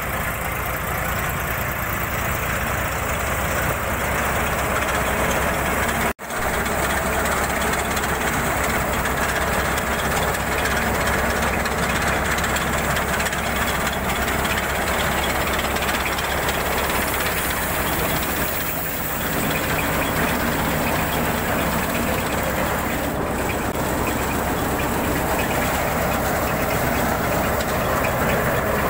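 Swaraj 834 XM tractor's diesel engine powering a Malwa thresher, with the engine and threshing drum running steadily under load as crop bundles are fed in. The sound drops out for a moment about six seconds in.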